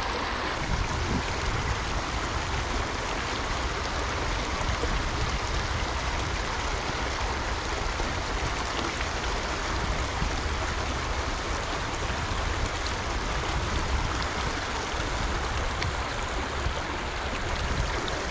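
Small rocky creek running steadily, an even rush of flowing water with a low rumble underneath.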